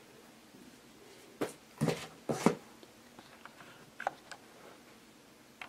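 Handling knocks and a short clatter of parts being put down, a few sharp ones between about one and a half and two and a half seconds in, then a few lighter clicks around four seconds.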